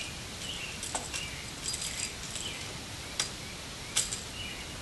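Small sharp clicks and ticks of copper wires being pushed into clear plastic push-in wire connectors, a few separate clicks with the loudest near the end, over faint bird chirps in the background.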